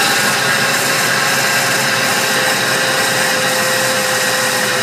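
Ford E-150 engine running with a steady whine from the serpentine belt drive, several high steady tones over a loud mechanical hum. The whine sounds like a power steering pump but comes from worn ball bearings in the idler and tensioner pulleys.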